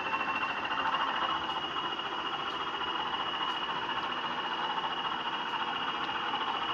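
Sound-fitted Bachmann Class 20 model locomotive running: the DCC sound decoder plays the diesel engine sound through its small speaker, mixed with the model's motor and wheel noise on the track. A steady high whine rises slightly in pitch.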